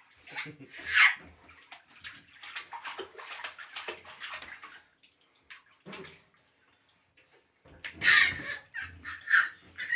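Bathwater splashing and sloshing in a tub in irregular bursts. It pauses briefly after the middle, then louder splashes come near the end.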